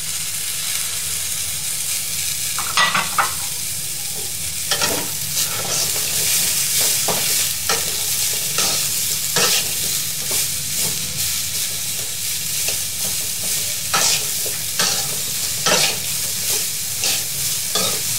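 Shredded carrot and broccoli stir-frying in a metal pan: a steady sizzle, with the metal spatula scraping and knocking against the pan at irregular moments as the vegetables are turned.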